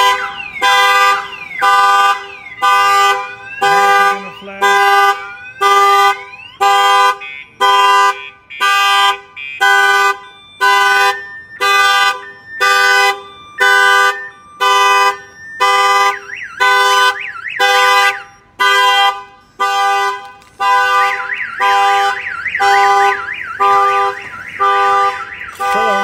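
Viper 5706V car alarm going off on a Chevrolet Silverado pickup, set off by opening the door while it was armed. It pulses one blaring tone a little faster than once a second. A rising-and-falling siren sweep plays over it at the start and again in the second half.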